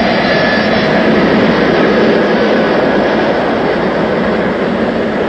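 Boeing 747 jet engines running during a high-speed taxi run: steady, loud jet noise with a faint whine in it.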